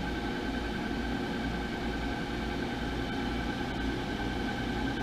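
Cincinnati Filmatic universal cylindrical grinder running with no work in it: its motors and hydraulic pump give a steady hum with a thin steady whine above it.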